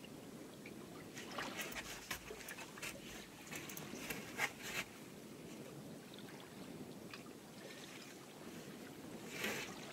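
Choppy lake water lapping and splashing against the side of a small boat: irregular slaps over a steady low rush, clustered a second or so in and again near the end.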